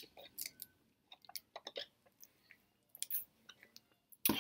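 Close mouth sounds of a person sipping Sprite through a straw and swallowing: scattered small wet clicks. A louder, sudden noisy sound comes near the end.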